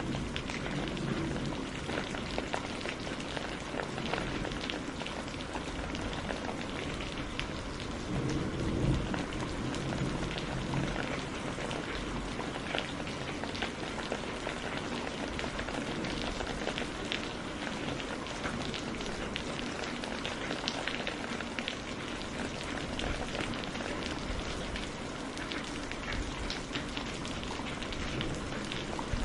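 Wood campfire crackling steadily: dense, irregular small pops and snaps over a low rumble of burning.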